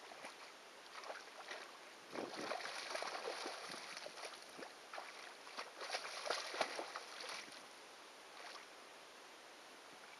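Hooked fish thrashing and splashing at the surface close to a wading angler, in rough bursts of splashing that start about two seconds in and are loudest around six seconds, then die away.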